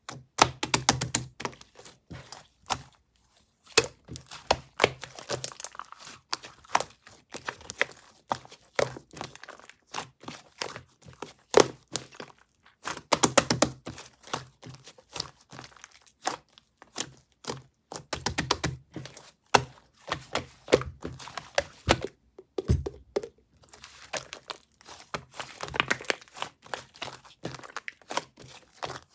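Strawberry-milk slime being squeezed, pressed and stretched by hand, giving off dense, irregular sticky clicks and pops, with a few short pauses.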